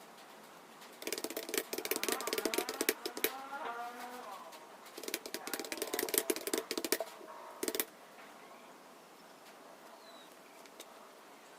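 Computer keyboard typing: two fast runs of key clicks, the first starting about a second in and the second about five seconds in, with a brief last flurry just before eight seconds, then only a faint background.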